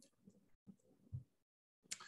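Near silence: faint room tone with a few brief, soft low sounds and a moment of complete digital silence.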